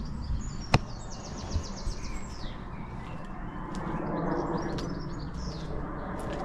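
Small birds chirping, with a quick trill about a second in and more scattered chirps midway, over steady outdoor background noise. There is one sharp click just under a second in.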